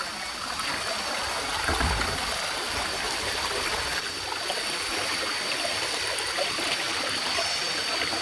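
A jungle stream rushing steadily over rocks, with a constant high-pitched drone of insects over it.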